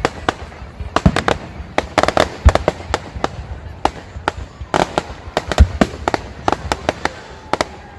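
Fireworks display going off in a rapid, irregular string of sharp bangs and cracks, several a second, with a few deeper booms among them.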